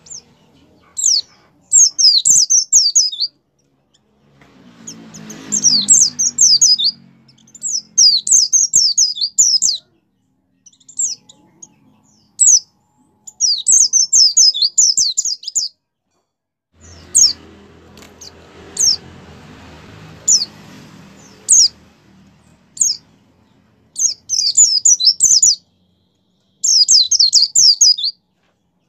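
White-eye (pleci) in full song: rapid, high, twittering warbled phrases about one to two seconds long, separated by single sharp chirps and brief pauses. A faint low background rumble rises twice underneath.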